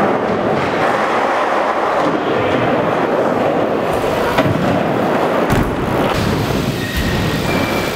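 BMX bike tyres rolling across skatepark ramps and floor as a steady rumbling hiss, with a sharp knock about four and a half seconds in.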